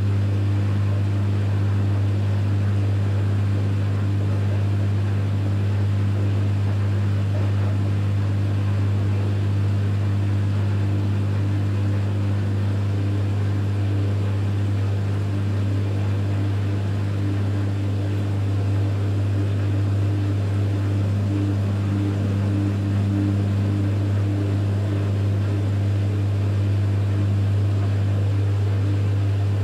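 Electrolux EWF 16589 W front-loading washing machine running its 60 °C cotton wash: a steady low hum over a fainter rushing noise. The owner judges the machine's drum bearings to be worn out.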